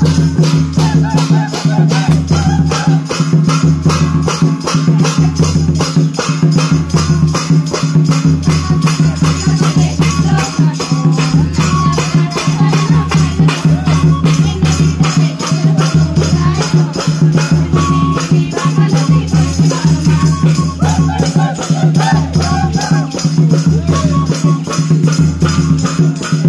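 Folk song music for a circle dance: fast, even percussion over a pulsing bass and a steady low tone, with a voice singing the melody.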